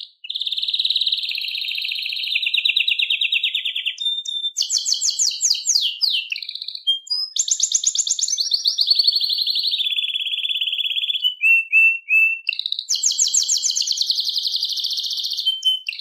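Canary singing a long, nearly unbroken song of rapid trills and rolling note runs that shift pitch from phrase to phrase, with a few short pauses.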